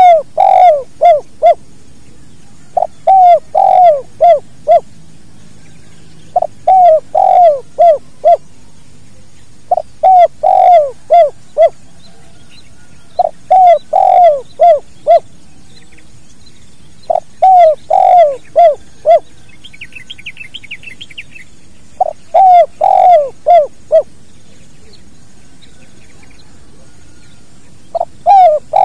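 Spotted dove (tekukur) giving its 'kuk dua' cooing song: a quick run of five or six coos, repeated every three to four seconds, with a longer pause near the end. A faint high trill from another small bird comes about two-thirds of the way through.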